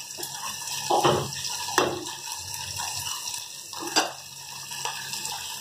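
Onion, ginger, garlic and tomato masala paste frying and bubbling in oil in a steel pot, a steady sizzle. A metal spoon clinks against the pot a few times as the paste is stirred.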